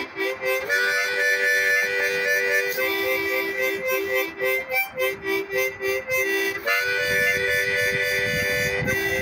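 Harmonica music: chords pulsing in a steady rhythm, with longer held chords starting about a second in and again near seven seconds.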